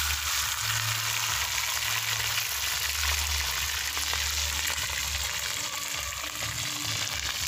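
Seasoned fish frying in hot oil, a steady loud sizzle that set in as the fish went into the oil, with a low rumble underneath.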